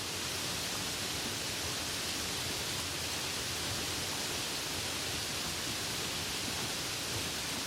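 Steady soft rain falling, an even hiss without separate drops or pauses.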